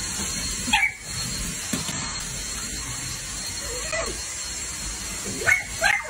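Miniature dachshund barking at a running cordless stick vacuum: short sharp barks about a second in, a weaker one around four seconds, and two quick ones near the end. Under them the vacuum's motor makes a steady whine and hiss.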